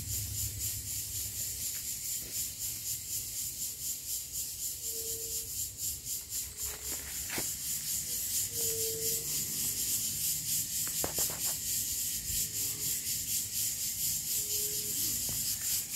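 Insects chirring in a steady, high, fast-pulsing drone, with a few short low calls now and then.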